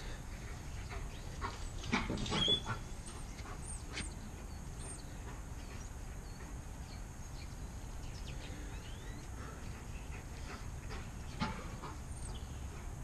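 A dog's brief vocal sounds: a short cluster about two seconds in and a single one near the end, over a steady low background rumble.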